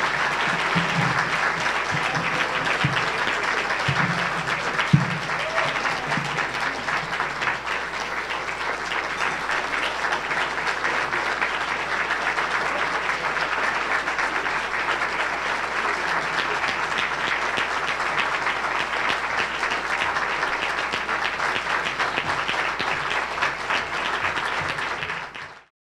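Large audience applauding steadily, the clapping cutting off suddenly near the end.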